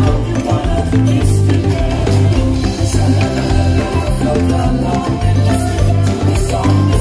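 Upbeat show music with a strong, steady bass line and percussion: the soundtrack of a nighttime castle projection and fireworks show.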